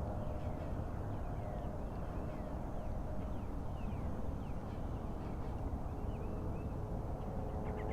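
Birds calling with many short chirps over a steady low outdoor rumble.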